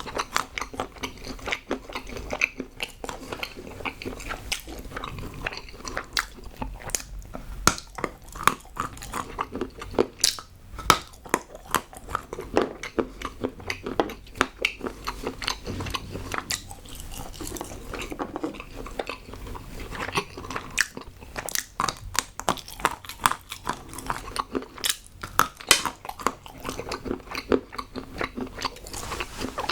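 Close-miked biting and chewing of hard moulded chocolate: a dense, irregular run of snaps and crunches.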